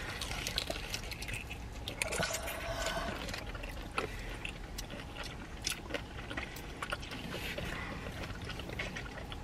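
Close-up, wet chewing of a bitten fried chicken wing with ranch dip, with many small sharp clicks and squishes from the mouth.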